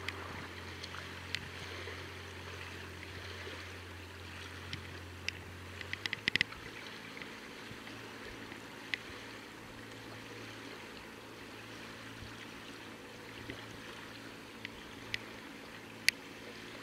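A 40 hp outboard motor on an inflatable rescue boat running at low speed, a steady low hum, with water lapping around it. A few sharp clicks come about six seconds in.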